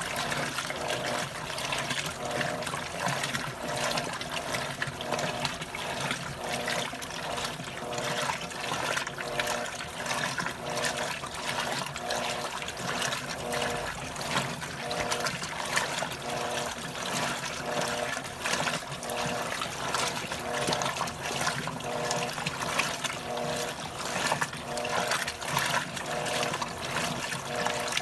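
Electrolux top-loading washing machine agitating on its heavy, heavily soiled, turbo program: water sloshing while the drive motor hums in short, even strokes a little more than one a second as the agitator swings back and forth.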